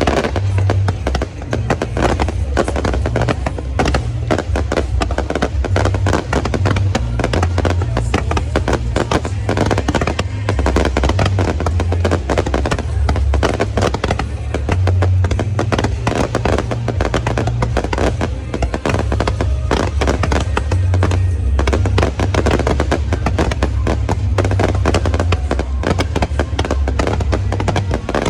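Fireworks display: a dense, continuous barrage of bursts and crackling, with music playing over it.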